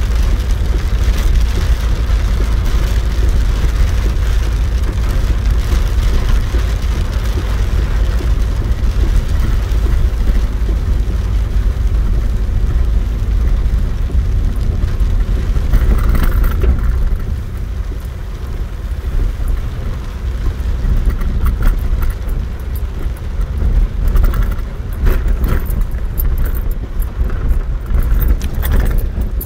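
Torrential rain drumming on the roof of a car as it drives, heard from inside the cabin, over the car's running engine. The downpour is loud and steady, easing a little about two-thirds of the way through.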